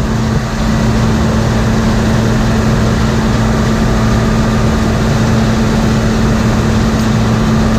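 Combine harvester running steadily: a loud, constant engine drone with an unchanging hum.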